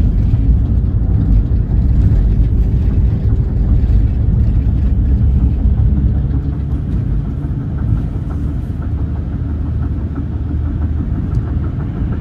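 Van driving on a road: a steady low rumble of engine and road noise.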